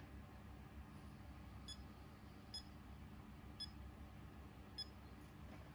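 Four faint, short electronic beeps about a second apart from a FNIRSI FNB58 USB power tester, its key-press beeps as its menu is stepped through toward fast-charge detection.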